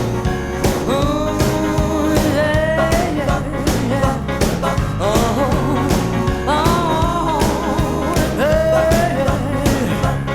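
Music: a song with a steady drum-and-bass beat and a sliding lead melody over it.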